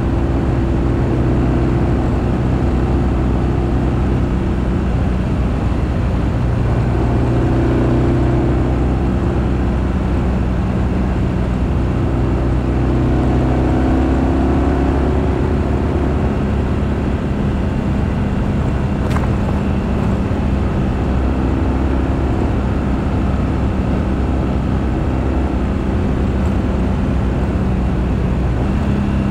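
BMW R1200GS boxer-twin motorcycle engine running on the move, its note rising and falling several times with throttle and gear changes.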